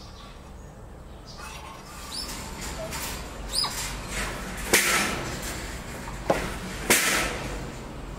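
Outdoor ambience with a few short rising bird chirps, and two brief harsh rasping noises about halfway and two-thirds of the way through, the loudest sounds, as the wire cages are handled.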